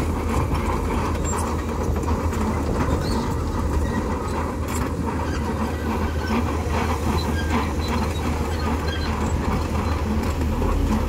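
Komatsu D61PX crawler bulldozer's diesel engine running steadily, with irregular clanks from its steel tracks as it crawls over loose dirt.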